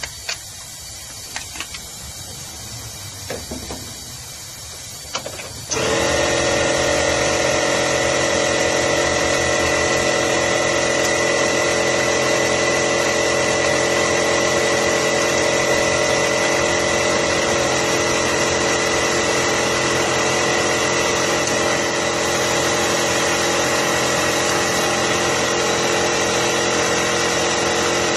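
A few light metallic clicks of hand-work, then a machine starts suddenly about six seconds in and runs on steadily with a constant hum and whine.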